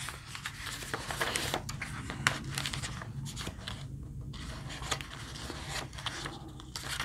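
Sheets of printed paper rustling as a stack of plan pages is leafed through and turned by hand, in irregular light crinkles and rubs.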